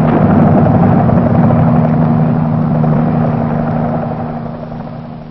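Aircraft engine droning steadily, then fading away over the last second or two.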